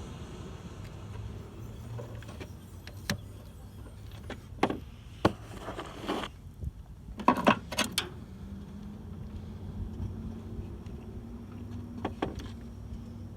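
Scattered clicks and knocks of bulbs and plastic sockets being handled and fitted into a car's headlight and turn-signal housings, loudest in a cluster about halfway through. A low steady traffic hum runs underneath, and a passing car fades away at the start.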